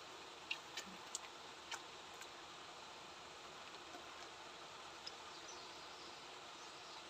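A bamboo-framed lift net being raised from shallow water: a few sharp clicks in the first two seconds and one more about five seconds in, over a steady faint hiss.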